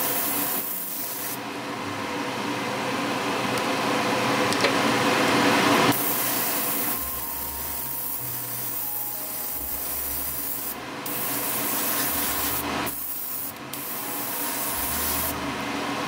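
Airbrush hissing as it sprays pearl paint in passes, the hiss easing off and picking up again about six and thirteen seconds in.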